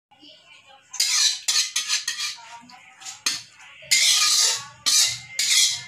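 Metal spatula scraping stir-fried water spinach out of a wok onto a plate: a run of short scrapes against the pan, starting about a second in.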